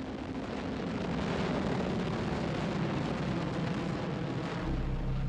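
Rocket engines firing at liftoff: a steady rushing rumble that grows louder over the first second or so and then holds. A low steady hum joins near the end.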